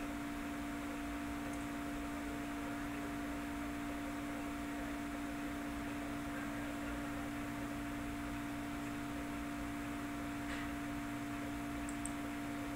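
Steady electrical hum: a few unchanging tones over a light hiss, with a couple of faint ticks near the end.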